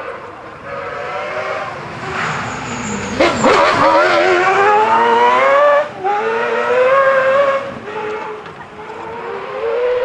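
A rally car's engine accelerating hard past, its pitch climbing steeply through the revs with quick gear changes about six and eight seconds in.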